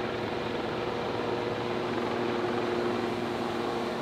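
Sikorsky S-61 firefighting helicopter flying overhead: its turbines and rotor give a steady hum with a few held tones over a hiss, slightly louder partway through.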